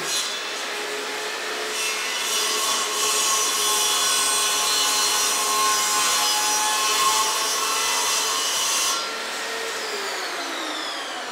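Small benchtop table saw running and cutting through a piece of wood: the cut is loudest for about seven seconds, then the saw is switched off and its motor whine falls in pitch as the blade spins down near the end.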